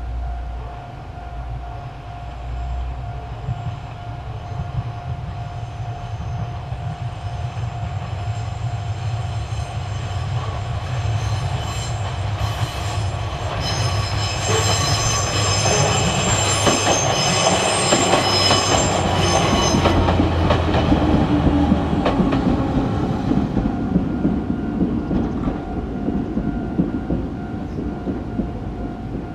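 Izuhakone Railway 3000 series electric train passing: the sound of its wheels on the rails grows louder as it approaches, is loudest from about fourteen to twenty-two seconds in as it goes by, then fades as it moves away.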